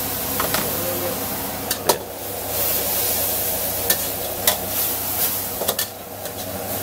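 Pork and bell peppers sizzling in a wok over a gas burner, with several sharp clanks of a metal spatula scraping and striking the wok.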